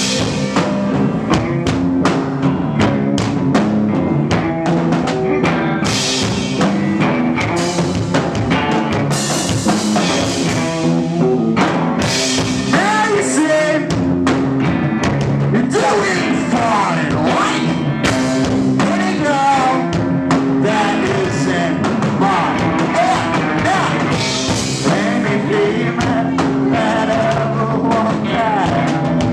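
Live rock band playing at full volume, a drum kit keeping a steady beat under bass and other instruments, with a wavering melodic line coming in about halfway through.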